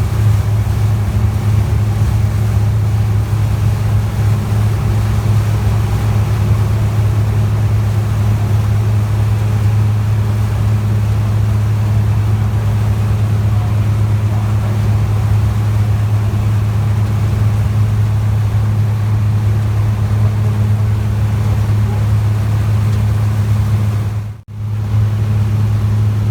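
A ferry's engine running with a steady low drone, heard on board, with a momentary break about 24 seconds in.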